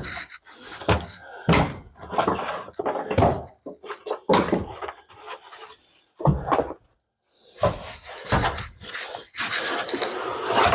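Old carpet being pulled up off a car's floor: rustling and tearing with scattered knocks and thuds, a brief pause about seven seconds in, then a stretch of heavier scraping and rustling near the end.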